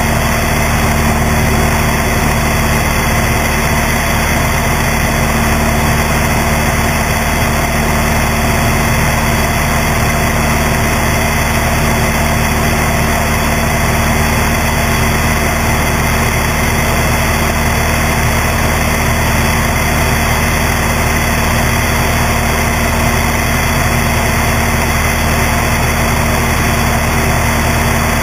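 Cessna 172's piston engine and propeller droning steadily in flight, mixed with a constant rush of wind over the strut-mounted camera.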